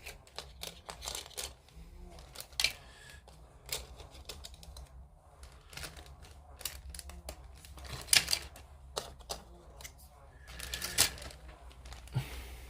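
Small plastic model-kit parts being handled and put into a small bag: irregular light clicks and rustles, with a few louder clicks.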